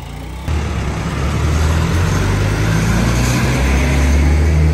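Diesel engine of a large school bus running close by, a deep steady drone that grows slightly louder toward the end.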